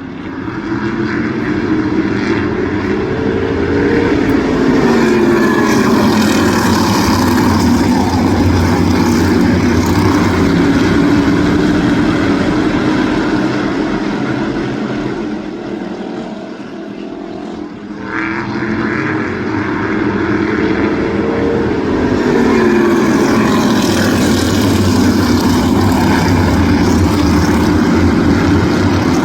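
A field of crate modified race cars running at speed on a short oval, their V8 engines rising and falling in pitch as the pack passes. The sound fades somewhat a little past halfway, then swells again as the cars come back around.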